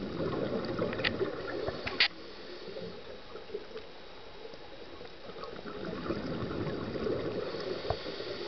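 Scuba diver's exhaled bubbles gurgling out of the regulator, heard underwater, in two bursts about five seconds apart with quieter breathing between. A sharp click about two seconds in is the loudest sound.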